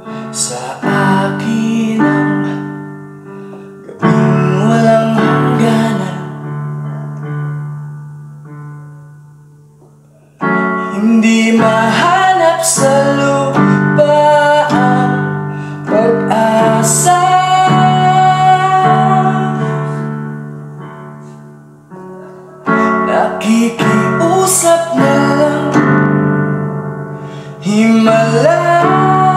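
A Tagalog ballad sung over keyboard chords that are struck every few seconds and left to fade, the accompaniment swelling louder about ten seconds in.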